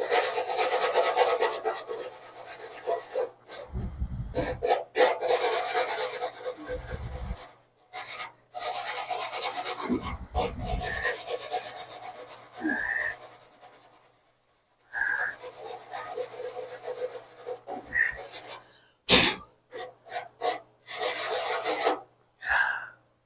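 Aluminium door skin being scrubbed clean by hand ahead of brazing: fast rasping strokes in runs of a few seconds, with short pauses and a few dull thumps.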